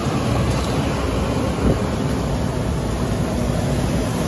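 Vehicle engine running steadily while driving, a low rumble with road and wind noise over it.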